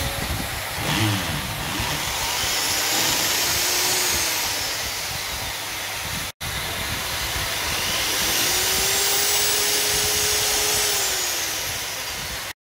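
Corded electric drill boring into a wall. The motor speeds up with a rising whine and runs under load with a dense grinding noise. It cuts off abruptly a little past halfway, then a second run rises, holds steady and winds down near the end.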